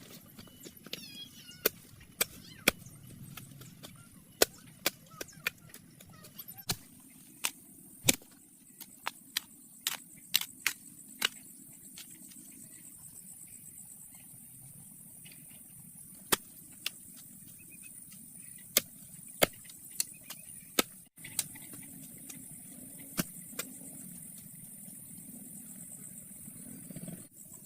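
A series of sharp knocks or taps at irregular intervals, several in quick succession in places and sparser later on, over a faint steady high hiss.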